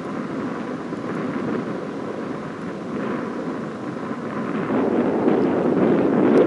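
Jet noise from the Blue Impulse team's Kawasaki T-4 jets flying at a distance: a steady rumble that grows louder about five seconds in.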